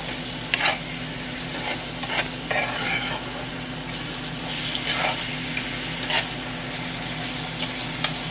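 Bananas frying in cinnamon and sugar in a pan on high heat: a steady sizzle with a handful of sharper crackles spread through it, over a steady low hum.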